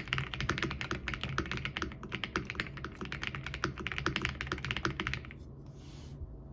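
Fast typing on a Royal Kludge R65 65% mechanical keyboard: a quick, uneven run of key clicks that stops about five seconds in, followed by a brief soft hiss.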